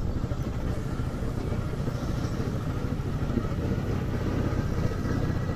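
Motorcycle engine running steadily at low speed, a low rumble.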